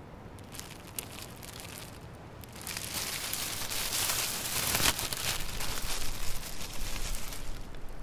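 Wood campfire crackling under a wire-mesh grill: a few scattered pops at first, then from about three seconds in a dense crackling hiss.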